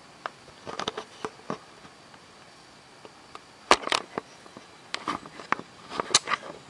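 Handling noise from a handheld camera: irregular clicks, knocks and rustles of fingers and hand on the camera body, with the loudest pair of knocks a little past the middle.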